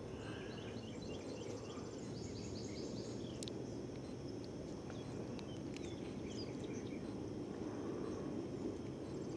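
Faint outdoor ambience: a steady low background rumble, with birds chirping in short repeated phrases and insects trilling in fast high pulses.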